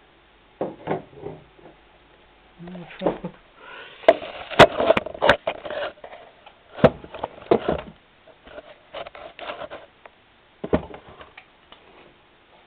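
Irregular handling knocks, clicks and rustles, the sharpest clustered about halfway through, as the camera is set down and steadied.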